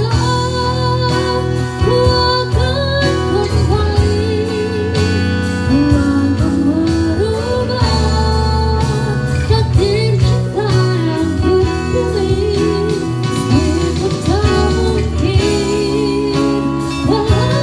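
Live acoustic band: a woman singing a ballad through a microphone, with vibrato on held notes, over strummed and plucked acoustic guitars and a steady low bass line.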